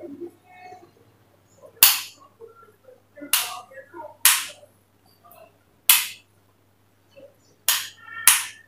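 Hands working oiled hair: six sharp swishing smacks at uneven intervals, one to one and a half seconds apart, the last two close together near the end.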